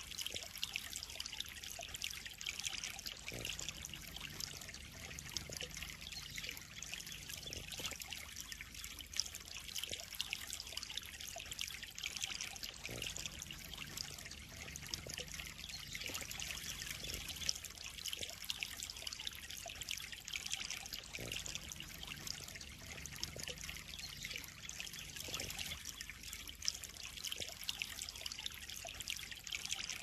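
Water trickling steadily into a koi pond.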